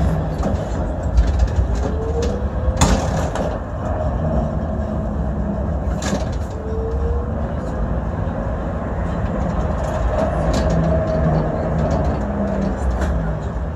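Düwag GT8 tram running, heard from the driver's cab: a steady rumble of wheels on rail with an electric motor whine that rises in pitch twice, and two sharp clicks.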